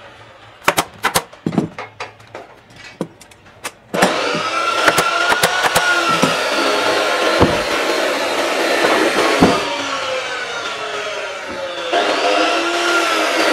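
A run of sharp, irregular clicks. About four seconds in, a loud, steady whirring machine noise with wavering tones takes over and keeps going.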